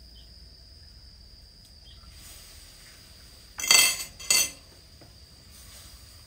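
Two sharp metallic clinks about a second apart, a utensil or egg striking a steel wok, each with a short ring. A steady high-pitched insect drone goes on underneath.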